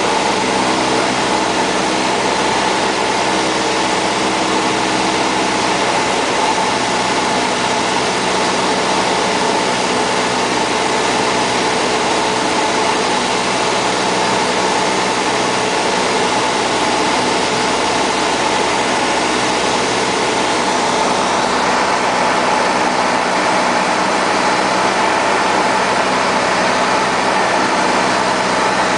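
Cessna 172's piston engine and propeller heard inside the cockpit on final approach, a loud steady drone with a constant pitch.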